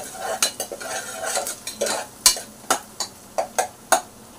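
A metal spoon stirring and scraping softened chopped onions frying in oil in a stainless steel pressure cooker, with the onions sizzling. The spoon clinks sharply against the pot several times; the loudest clink comes about halfway through, and a quick cluster follows near the end.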